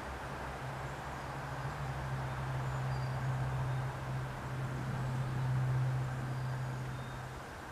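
Steady low mechanical hum over a background hiss, swelling slightly about five seconds in, with a few faint high chirps.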